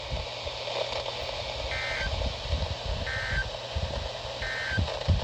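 Emergency Alert System end-of-message data tones: three short, shrill warbling digital bursts about 1.4 seconds apart, signalling the end of the tornado warning. A steady low rumble runs underneath.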